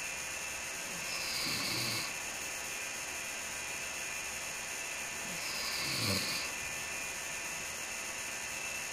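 A sleeping man snoring: two snores, one about a second in and one about five seconds in, each a low rattle with a breathy hiss, over a steady background hiss. The breathing comes at an even pace without pauses, which the sleeper took as a sign that he does not have sleep apnea.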